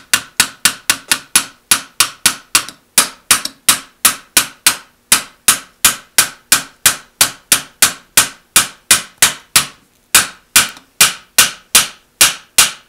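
Small hammer tapping steadily on a CZ 241 shotgun's aluminium trigger group, about three or four sharp taps a second, to drive it forward out of the receiver, where years of dirt hold it stuck.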